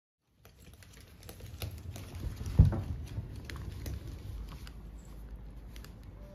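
Close rustling and scattered small clicks of movement on a lap, with one sharp thump about two and a half seconds in.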